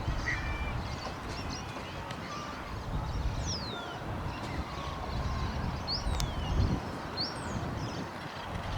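Wind buffeting the microphone in an uneven low rumble, with birds giving several short, high chirps that fall sharply in pitch.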